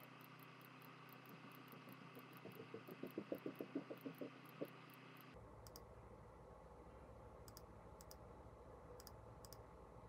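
Near silence: faint room tone, with a quick run of about a dozen soft clicks, about five a second, lasting about two seconds a couple of seconds in.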